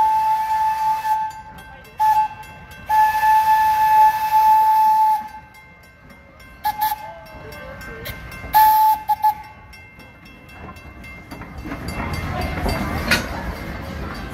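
Steam locomotive whistle blowing a series of blasts over a hiss of steam: a long blast, a short toot, a longer blast, then more short toots about nine seconds in. Outdoor crowd noise rises near the end.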